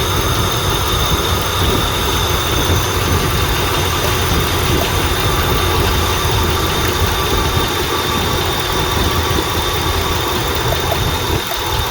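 2004 Ram 1500's 4.7 L V8 idling steadily with a replacement ignition coil on cylinder 6. Near the end, a rapid, even ticking starts over the idle, which the owner takes for the coil firing.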